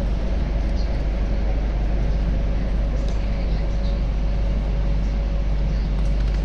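Steady, deep rumble of an MTR metro train running through a tunnel, heard from inside the car, with a faint steady tone over it.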